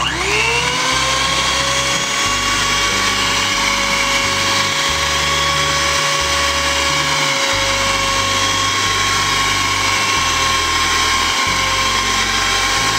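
Electric mixer beating butter and sugar. The motor switches on with a quick rising whine, runs at a steady pitch, then winds down at the very end.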